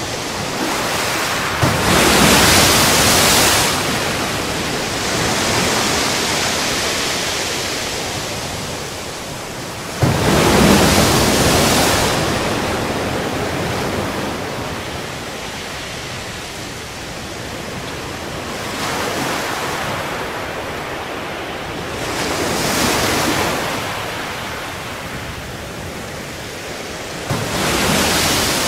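Sea waves breaking on a beach: a steady rush of surf with four louder surges, three of them starting with a sudden crash and slowly washing away.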